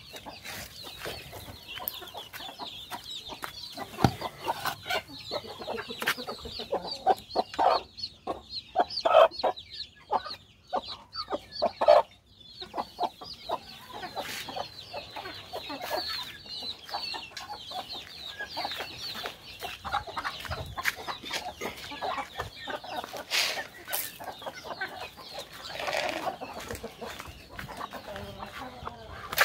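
Chickens clucking, with a run of louder clucks about a third of the way in, over a steady high chirping throughout.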